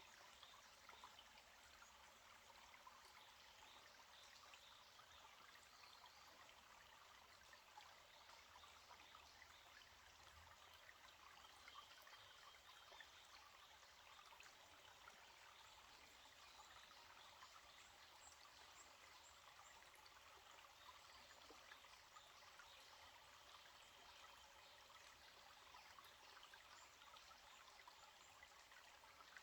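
A small forest stream trickling faintly and steadily.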